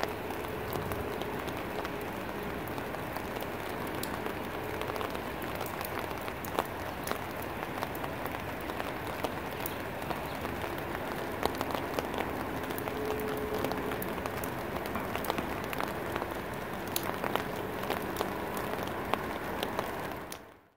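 Steady rain falling on garden foliage, with many separate drops hitting the leaves as sharp ticks over an even hiss. It fades out near the end.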